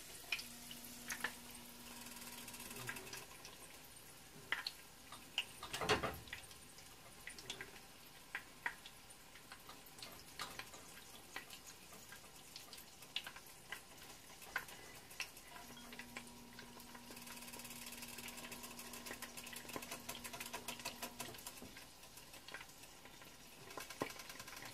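Faint crackle of egg rolls frying in oil, with scattered small clicks and one louder knock about six seconds in.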